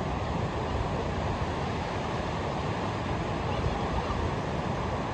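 Ocean surf washing onto a beach, a steady rushing noise with no single breaker standing out.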